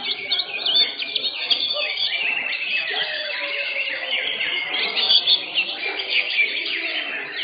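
Many caged greater green leafbirds (cucak hijau) singing at once, a dense tangle of fast chirps and warbled phrases with no break.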